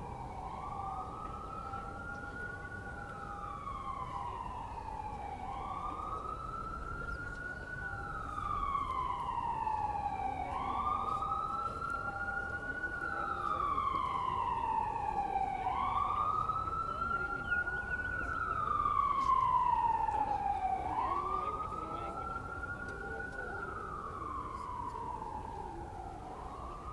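Emergency vehicle siren sounding a slow wail: each cycle rises quickly in pitch and then falls slowly, repeating about every five seconds. It grows louder toward the middle and fades somewhat near the end.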